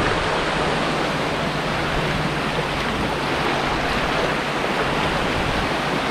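Sea surf washing on a beach, heard as a steady, even rushing hiss.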